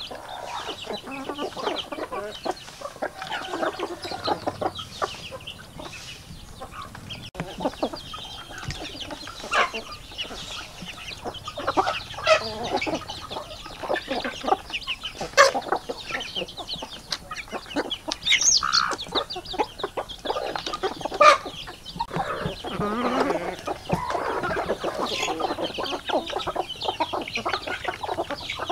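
A flock of chickens clucking and calling as they feed, with a few sharp taps among the calls.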